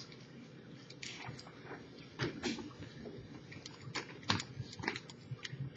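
Lock picking in a Brinks disc padlock: pick and tension tool working the pins in the keyway, making irregular small metallic clicks and scrapes, with a few sharper clicks.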